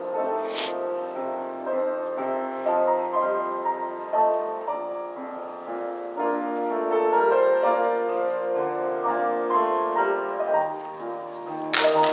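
Piano music playing held chords with a melody line over them. A few sharp taps sound near the end.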